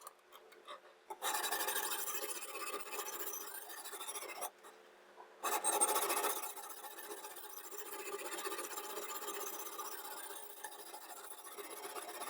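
Steel knife edge scraping against a diamond sharpening stone in continuous rasping strokes. It starts about a second in, stops briefly near the middle, then resumes and carries on a little softer.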